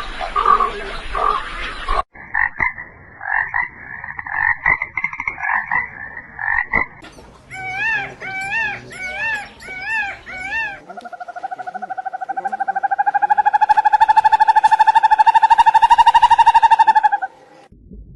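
Frogs calling: first a chorus of pulsed croaks, then a string of short rising-and-falling calls about every half second, then one long rapid trill lasting about six seconds that grows louder and cuts off suddenly.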